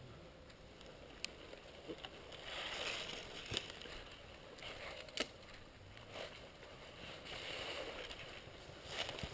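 Faint rustling in two stretches, with a few single sharp clicks in between.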